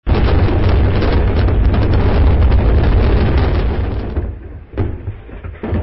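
Cinematic impact sound effect of stone cracking: a loud deep rumble with crumbling noise that dies down after about four seconds, followed by two short thuds near the end.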